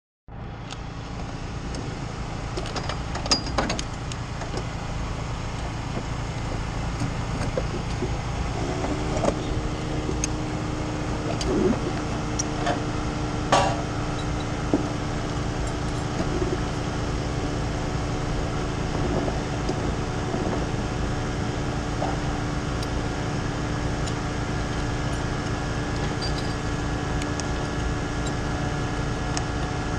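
Engines idling in a race pit area, a steady low rumble, with a few sharp knocks and clicks in the first half. About nine seconds in, a steadier humming engine note settles in and holds.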